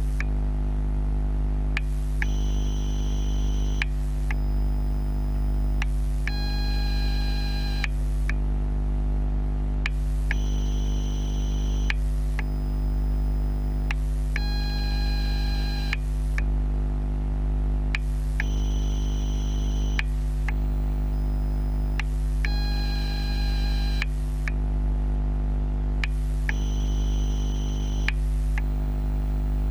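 Ni-MH battery charger (LCD Charger TGX12) heard through contact microphones while charging AA cells: a steady electrical hum, a short click about every two seconds, and a high whine that comes in for a second or so roughly every four seconds. This is the strange noise the charger makes.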